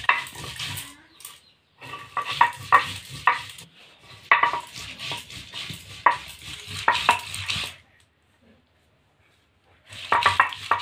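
Stone roller of a sil-batta grinding slab crushing and grinding small potatoes, scraping and knocking against the ridged stone in rhythmic strokes about two a second. The strokes come in three runs, stop for about two seconds near the end, then start again.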